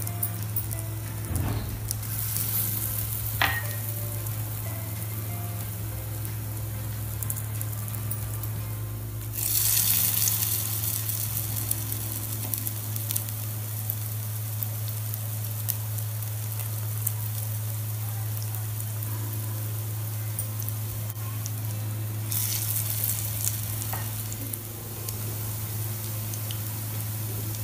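Arvi-leaf and urad dal patties shallow-frying in hot mustard oil in a non-stick kadai: a steady sizzle that swells louder about two, nine and twenty-two seconds in, over a steady low hum.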